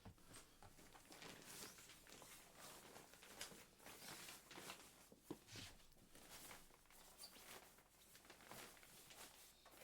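Faint, irregular rustling and scuffing of a deflated inflatable camping mat being folded by hand.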